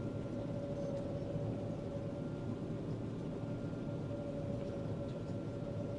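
John Deere combine running steadily while harvesting soybeans, heard from inside the cab: a low, even rumble with a constant whine held on top.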